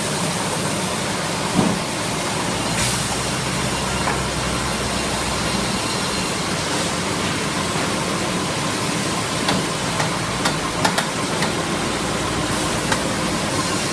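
CNC sawmill line machinery running with a steady noise, broken by a few sharp knocks and clacks, once about a second and a half in and several times in a cluster near the end.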